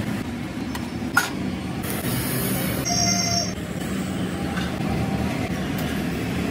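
Steady low rumble of background traffic noise, with a short high-pitched tone about three seconds in.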